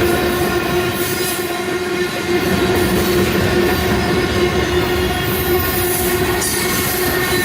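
CSX manifest freight train rolling past, its cars making a steady loud rumble with a sustained tone running through it.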